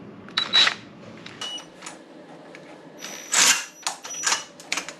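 DeWalt cordless drill triggered in several short spurts, the loudest about three seconds in, after it began smoking: its motor is burning out.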